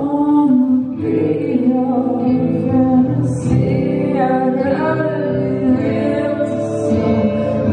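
A live rock band playing: a sung melody of long held notes over electric guitar and the band, heard from the audience in a concert hall.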